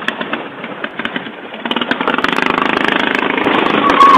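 Vehicle engine running hard, heard from inside a car's cabin, growing louder about two seconds in and then holding steady.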